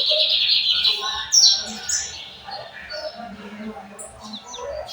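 Lined seedeater (bigodinho) singing its 'torneiro' song: a rapid high trill for about the first second, then a few loud sharp down-slurred notes, then softer scattered chirps.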